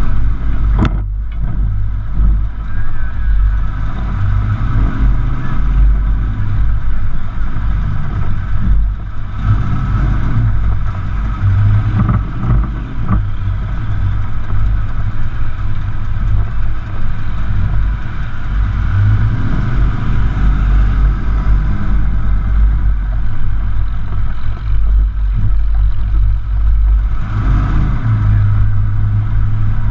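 Loud, steady exhaust rumble of a pulling truck's small-block V8, running at low throttle with small swells in level as it creeps along.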